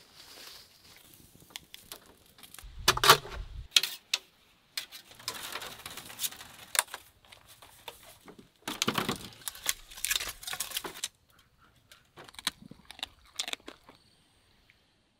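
Rustling and crackling of leaves and bamboo in short separate bursts with scattered clicks, the loudest burst about three seconds in; it goes quiet near the end.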